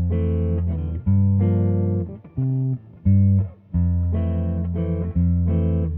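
Background music: an instrumental passage of a song, with short stop-start chords over a strong low bass line and no singing.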